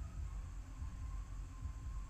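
Room tone: a low, steady hum and rumble with no other events.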